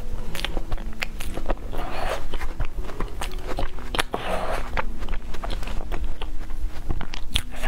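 Close-miked mouth sounds of someone eating soft cream-filled mousse cake: wet, sticky clicks and lip smacks from chewing, with a couple of soft breaths through the nose.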